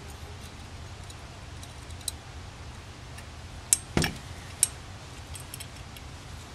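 Small metal clicks and taps from parts being handled as a choke pull-down diaphragm is fitted to a Rochester Monojet carburetor. A few sharper clicks come about four seconds in, over a faint low hum.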